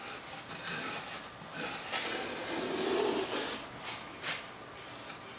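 Hand plane shaving the leading edge of a balsa vertical stabiliser: a few long scraping strokes of wood being pared, then a light knock about four seconds in.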